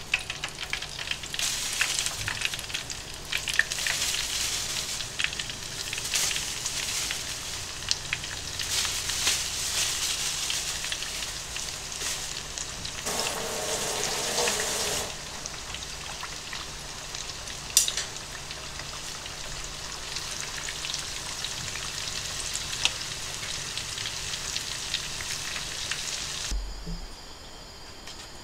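Pieces of chicken karaage deep-frying in hot oil in a small pot: a dense, steady crackling sizzle with many small pops. This is the first fry of a double fry. The sizzle drops away near the end.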